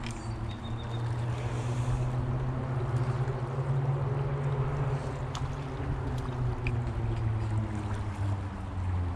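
A steady low motor-like drone whose pitch drifts slowly, over the rush of flowing creek water, with a couple of light clicks about halfway through.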